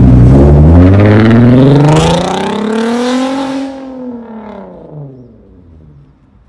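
VW Golf R32's 3.2-litre VR6 engine through an aftermarket DP exhaust, revving hard as the car pulls away. The engine note climbs in pitch, then drops and fades as the car moves off down the road.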